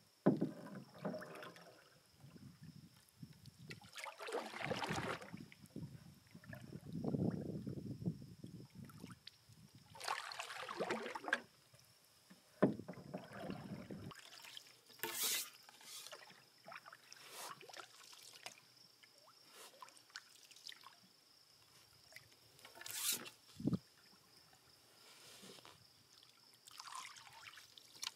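Wooden canoe paddle strokes in calm water: the blade dipping and pulling, with splashing and dripping every few seconds. There are a couple of brief sharp knocks between strokes.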